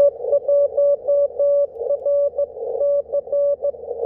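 Morse code (CW) on the 20 m band heard through an HF transceiver: a single steady beep keyed into dots and dashes, with band hiss between them through a narrow CW filter.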